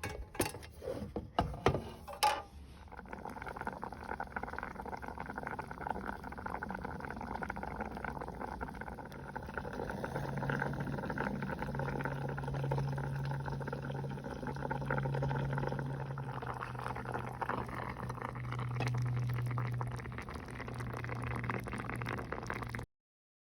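A few sharp clinks of cookware, then a steady hiss of liquid heating in a pot on a camp stove, slowly getting louder as it comes up to a simmer.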